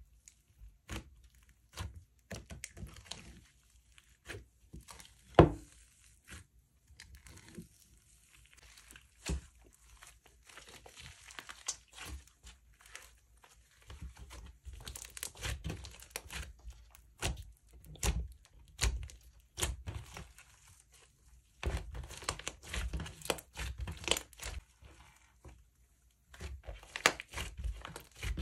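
Glossy slime being mixed and worked by hand, giving a dense, irregular run of sticky crackles, clicks and pops. One sharp pop stands out about five seconds in.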